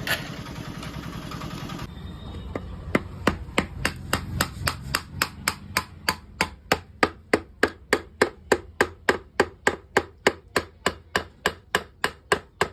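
Steady, evenly paced hammer blows, about three a second, from workshop teardown work on a motorcycle engine. A steady hum runs for the first two seconds before the hammering starts.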